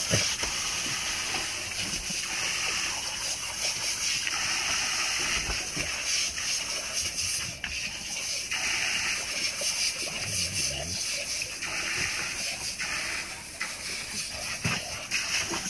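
Water spraying and running into a plastic wading pool, with splashing and sloshing as Newfoundland dogs play in the stream and the pool water; the splashing comes and goes in stretches.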